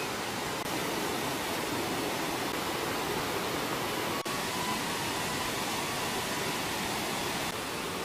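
Mountain stream rushing over rocks and small cascades, a steady noise that briefly drops out about four seconds in.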